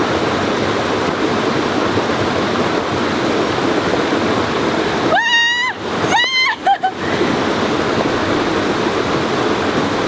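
Steady rush of falling water at a jungle waterfall. About five and six seconds in, two short high-pitched cries cut in briefly.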